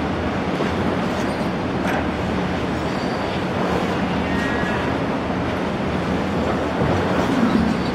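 A Boeing Jetfoil's machinery running steadily during a fire pump test: a constant low drone under a loud even rush of churning water.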